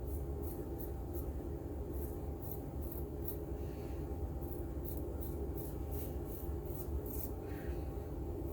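Straight razor scraping through lathered stubble in a run of short, quick strokes, about two or three a second at an uneven pace.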